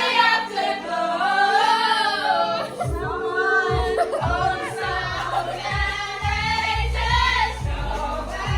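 Pop music with several voices singing; a bass beat comes in about three seconds in.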